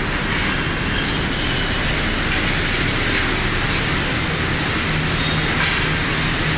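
Loud, steady machinery noise of a working factory floor: a constant hiss with a low hum underneath and no separate events.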